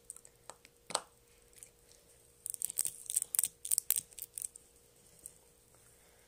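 An aerosol can of Tenys Pé foot deodorant being handled: a few sharp clicks, then about two seconds of short, hissy bursts, four or five a second.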